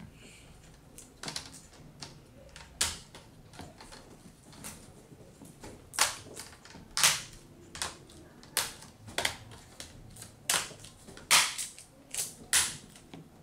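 Irregular sharp plastic clicks and taps from laptop screen parts being handled and fitted, sparse at first, then louder and more frequent from about halfway through.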